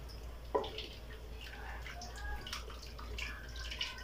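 A spoon stirring chicken, tomato and onion in a steel pot with a splash of hot water, making wet sloshing and sizzling sounds. A sharp knock comes about half a second in.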